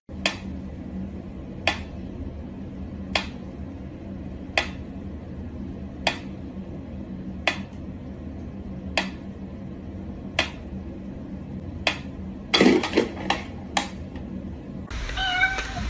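Wind-up pendulum metronome ticking slowly, about one tick every second and a half, over a steady low hum. About three-quarters of the way through, a short cluster of louder knocks and clatter breaks the even beat.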